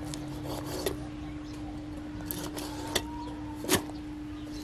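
Large kitchen knife cutting into a whole silver fish behind the head and pectoral fin, the blade rubbing and scraping through the flesh on a plastic cutting board, with three sharp clicks, the loudest about three quarters of the way through. A steady low hum runs underneath.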